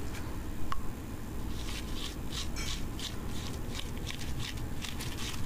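A spatula scraping and dabbing wet lead-oxide battery paste onto a lead grid over a plastic sheet: a run of short scraping strokes, about two or three a second, starting about a second and a half in, over a low steady rumble.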